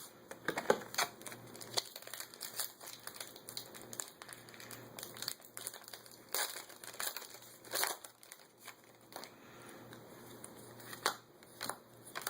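A foil Yu-Gi-Oh booster pack wrapper crinkling and crackling in the hands as it is handled and torn open, in irregular bursts.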